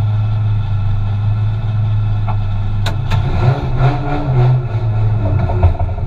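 Turbocharged Toyota 2JZ straight-six in an S15 Silvia drift car idling steadily, heard from inside the cabin. About three seconds in come a couple of sharp clicks, and the engine note then starts to waver as the car moves off.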